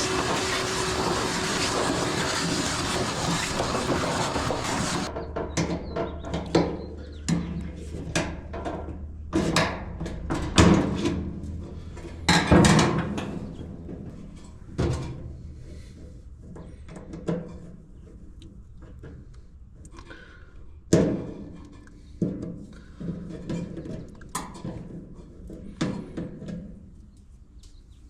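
A loud steady rush of blowing air that cuts off suddenly about five seconds in, followed by scattered clunks and clicks of metal dryer parts being handled and worked on, such as a drum support roller being cleaned and turned.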